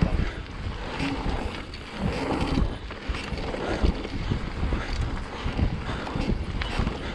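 Wind buffeting the microphone of a mountain-bike-mounted camera during a descent, with irregular knocks and rattles from the bike over rough trail.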